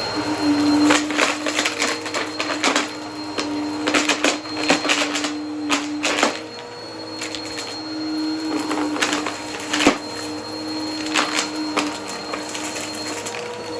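Vacuum cleaner running with a steady motor hum while picking up crunchy debris: irregular sharp clicks and crackles as bits are pulled through.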